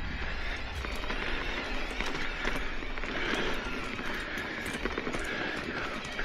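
Ibis Oso electric mountain bike riding over a rough dirt trail: tyres crunching on dirt and stones, with scattered sharp clicks and rattles from the bike, and the rider breathing hard on the climb.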